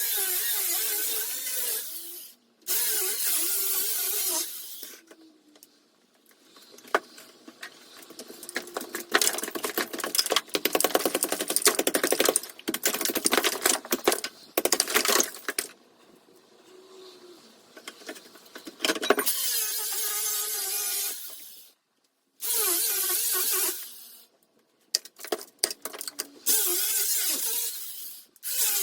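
Handheld power saw cutting through an old lath-and-lime plaster ceiling. It runs in several bursts of a few seconds with short stops, its pitch wavering as the blade loads and unloads. A longer, rougher stretch of cutting with a dense rattle comes in the middle.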